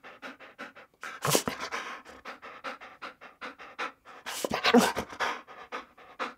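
Dog panting rapidly and evenly, about five or six breaths a second, with two louder noisy bursts, about a second in and again just past four seconds.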